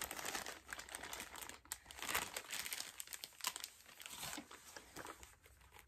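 Clear plastic bag crinkling irregularly as it is handled.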